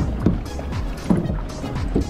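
Background music over kayak paddles dipping and splashing in the river, with a few short sharp strokes.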